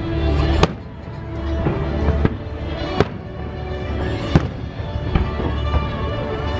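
Aerial fireworks shells bursting overhead: a series of sharp bangs every second or so, the loudest about half a second in, with music playing underneath.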